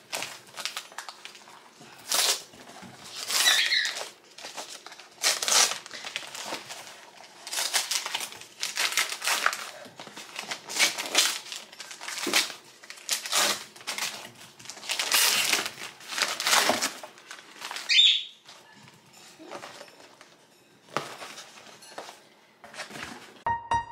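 Red gift wrapping paper being torn and crumpled off a box, in many irregular crackly rips and rustles. Piano music starts right at the end.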